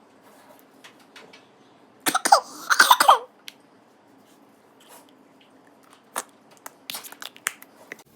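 A girl coughing, a short fit of several coughs about two seconds in. Several short sharp clicks follow near the end.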